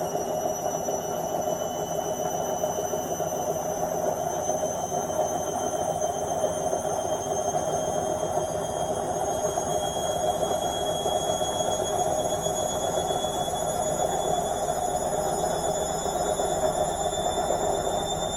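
Washing machine spinning its drum in the final spin cycle: a steady rushing hum with a high whine that slowly rises in pitch as the drum speeds up.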